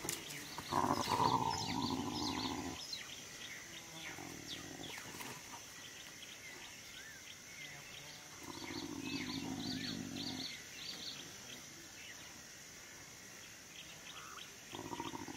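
Spotted hyenas fighting: three drawn-out low calls, each about two seconds long, coming about a second in, past the middle, and near the end. Birds chirp throughout.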